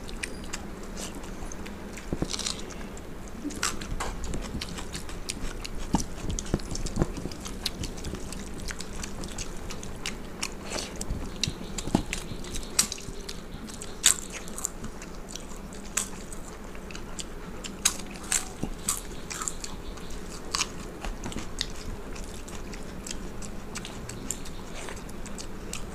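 Close-miked eating sounds: chewing, with irregular sharp crunches from bites of fried papad. Fingers squish as they mix soaked rice on steel plates.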